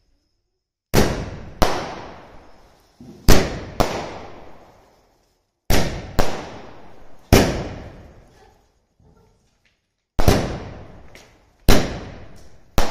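Fireworks going off in a series of about ten loud, sharp bangs, many coming in pairs about half a second apart. Each bang trails off in a long echo.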